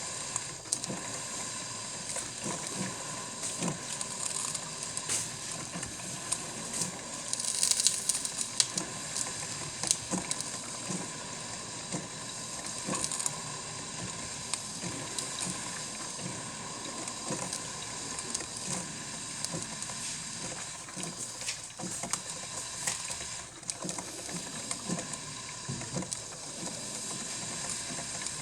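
Cuisinart drip coffee maker brewing: steady hissing and bubbling with small crackles and sputters as hot water is pushed up, with a brief louder burst of hiss about eight seconds in.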